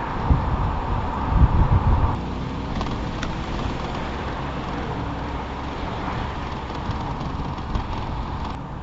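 Mercedes G-Class SUV driving on an asphalt road: engine and tyre noise, uneven and louder for the first two seconds, then a steadier, quieter drone after a sudden change.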